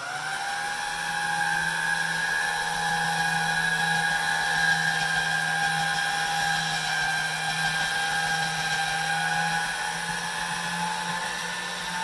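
Electric motor drive on a pasta roller running steadily as a sheet of dough is fed through the rollers: a steady high whine with a low hum under it, settling to its pitch in the first half second.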